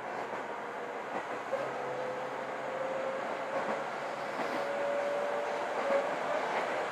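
Chichibu Railway 6000-series electric train running, heard from inside the passenger car: a steady rumble of wheels on rail. A thin whine rises slightly in pitch from about a second and a half in until near the end.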